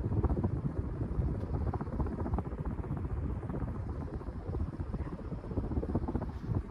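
Wind noise from an Emerson 1895 series ceiling fan's blades turning on high speed at about 210 RPM, the air stream buffeting the microphone as an uneven low rumble.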